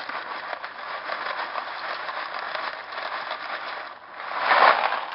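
Water in a saucepan boiling on an electric stove coil, a steady crackling hiss. About four and a half seconds in it swells into a louder rush.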